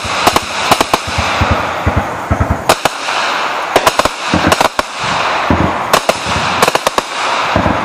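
Sustained gunfire: sharp cracks of rifle shots, some single and some in quick bursts, with echoes filling the gaps between them.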